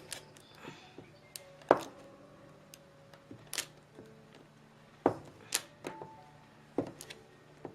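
Irregular sharp knocks and taps of oil-based modelling clay being cut up and its pieces stacked on a hard work surface, about seven in all, the loudest near the start and just before two seconds in.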